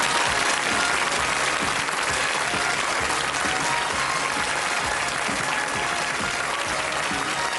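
Studio audience applauding steadily, with music playing underneath.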